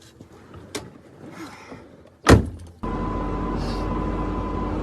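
Steady car-cabin noise from a moving car, a constant rumble with a faint steady hum, starting sharply after a thump just over two seconds in. Before it, only faint soft sounds and a click.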